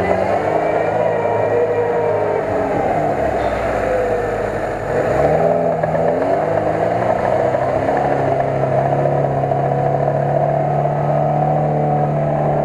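Lada Niva's four-cylinder petrol engine revving hard under load in deep mud. Its pitch rises and falls in the first few seconds, then it is held at high revs, steady, for about seven seconds.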